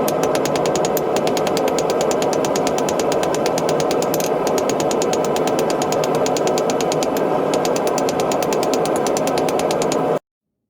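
A machine running steadily at an even speed, with a rapid, regular ticking over its hum. It cuts off abruptly near the end.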